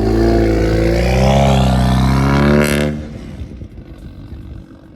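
Audi S3's turbocharged 2.0-litre four-cylinder with a custom full exhaust, accelerating hard with its pitch climbing and then holding. About two and a half seconds in comes a sharp crack, and the sound drops to a quieter, rough running.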